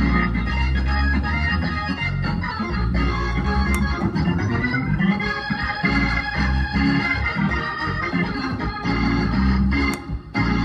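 Gospel keyboard played solo: held chords in the middle and upper range over a deep bass line.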